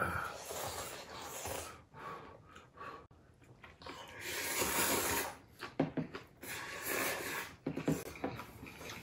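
Ramen noodles being slurped and chewed: several long noisy slurps, the longest about four to five seconds in, with small clicks and knocks between.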